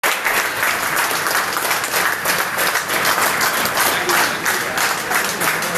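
A group of people clapping their hands in sustained, continuous applause.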